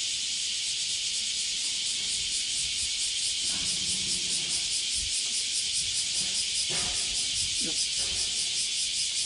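A steady, high-pitched insect chorus outdoors, pulsing several times a second, with faint rustling of cord and pole being handled.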